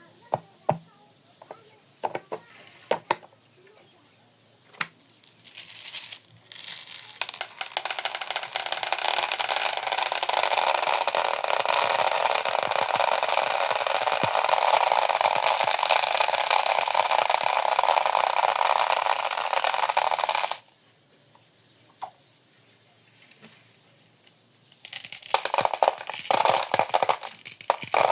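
Marbles clattering down a plastic marble run: a few scattered clicks, then a long stretch of dense rattling that cuts off suddenly about twenty seconds in. After a few lone clicks, the rattling starts again near the end.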